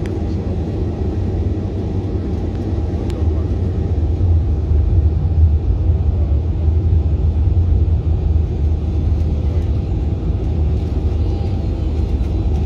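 Jet airliner cabin noise while taxiing on the ground: a steady low rumble of the engines and rolling wheels that grows slightly louder over the first few seconds.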